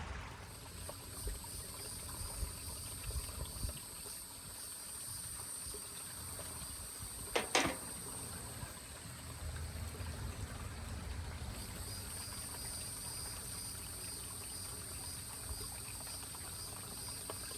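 Outdoor insects droning steadily in a few high-pitched bands, over a low rumble, with one short sweeping sound about seven and a half seconds in.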